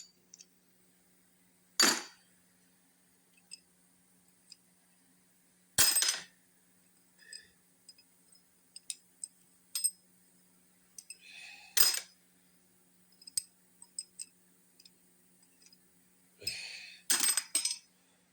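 Metal rocker arms and pushrods being pulled from an Oldsmobile 350 V8 and set down, clinking sharply about four times with lighter ticks in between, the last as a quick cluster of clinks near the end.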